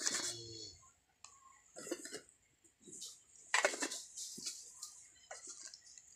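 A calf eating from a hand-held steel plate: scattered short rustles, scrapes and clinks, the loudest cluster about three and a half seconds in, with a brief low voice-like sound right at the start.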